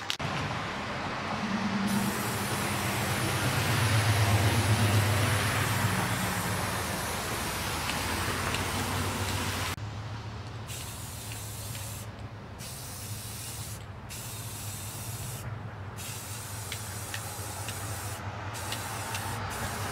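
Aerosol spray paint can hissing as orange paint is sprayed onto a clear Lexan RC car body. It sprays steadily at first; in the second half it comes in shorter passes with brief pauses between them. A steady low rumble runs underneath.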